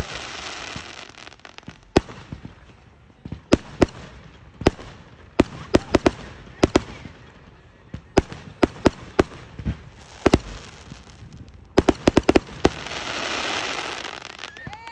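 Fireworks going off: many sharp bangs, bunched into quick runs about a third of the way in and again past the middle, with a hissing crackle that swells up near the end.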